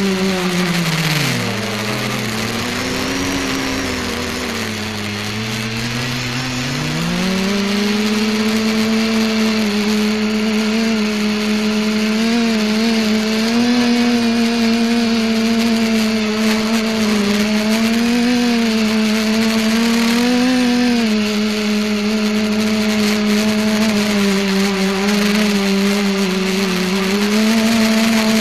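Multicopter motors and propellers humming, heard from the camera on board the craft. The pitch sinks low twice in the first several seconds as motor speed drops, then climbs back and holds steady with small wavers.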